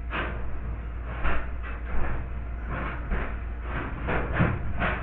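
Metal fish tape being pushed through a wall cavity, scraping and tapping against the studs and drywall in irregular strokes, a few each second, over a steady low hum.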